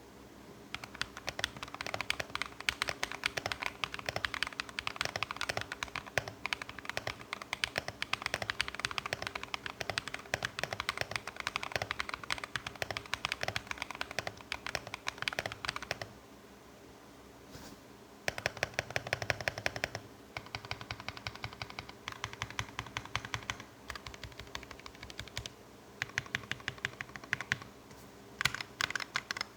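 Typing on a Redragon K617 mechanical keyboard fitted with lubed Akko CS Vintage White linear switches: rapid, steady keystrokes for about the first half, a short pause, then several shorter runs of typing.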